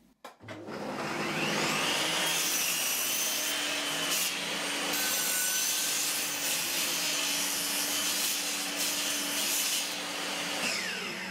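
Table saw motor starting and spinning up to speed, running steadily while the blade cuts a block of wood to length. Near the end it is switched off and winds down.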